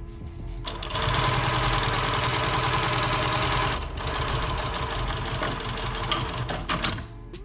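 A post-bed industrial sewing machine stitches leather, running in a rapid, even patter from about a second in. It pauses briefly near the four-second mark, runs again a little quieter, and stops near the end.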